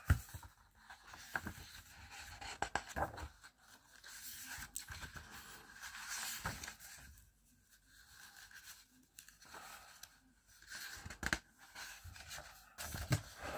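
Pages of a large hardcover book being turned by hand: stiff paper rustling and flicking in short, uneven spells, with a few sharper page snaps.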